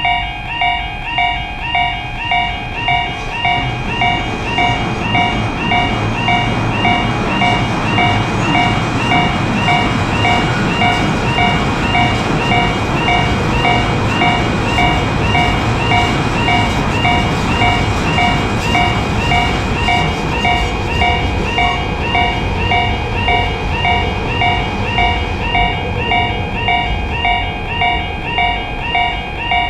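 Japanese level-crossing warning bell ringing steadily at about two dings a second, while a passing train's noise swells through the middle and eases off toward the end.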